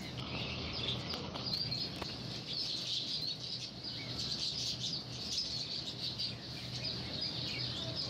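Many small caged birds chirping and twittering continuously in a dense chorus, over a steady low background hum.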